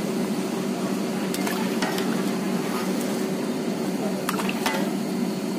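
Mathri sizzling steadily as they deep-fry in hot oil in a large wok at medium heat, stirred with a metal slotted skimmer that clicks against the pan a few times.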